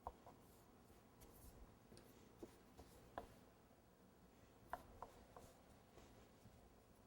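Near silence with a few faint light ticks and rubbing from hands and tools working fondant decoration on the cake.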